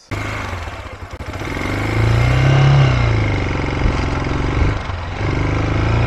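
200cc motorcycle engine pulling away under way, its revs climbing to a peak about two and a half seconds in and then dropping back.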